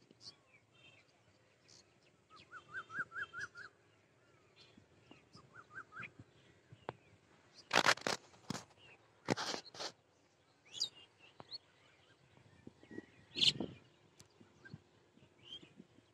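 Birds chirping outdoors, with a run of about six short rising chirps in quick succession. Loud bursts of rustling come about eight and nine and a half seconds in and again near thirteen and a half seconds.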